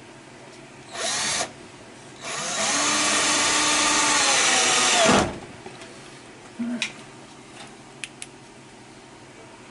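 Power drill running: a short burst about a second in, then a longer run of about three seconds whose pitch drops as it slows and stops, followed by a few light knocks.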